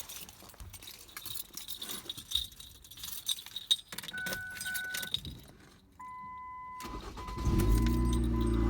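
Keys jangling and a car's warning beeps, then about seven seconds in the 2007 Ford Focus's 2.0 L Duratec four-cylinder engine starts and settles into a steady idle.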